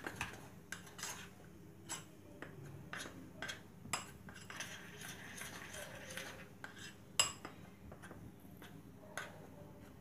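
Metal spoon stirring gram-flour batter in a ceramic bowl: irregular clinks and scrapes as it knocks the bowl's sides, the loudest clink about seven seconds in.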